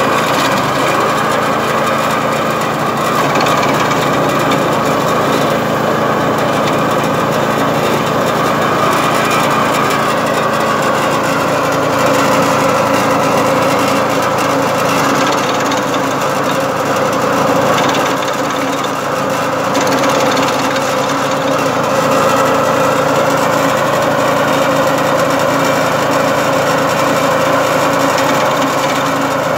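Drovosek DS-80BD7 garden branch chipper's 7 hp petrol engine running steadily under load while branches are fed in and chopped by its blades. The level dips briefly about two-thirds of the way through.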